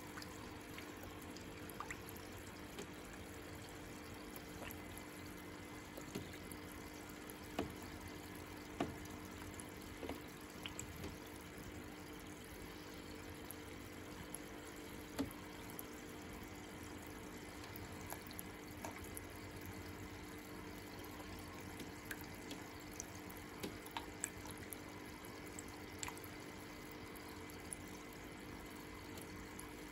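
Faint water sounds in a shallow turtle tank: light trickling with scattered small drips and taps, over a steady low hum.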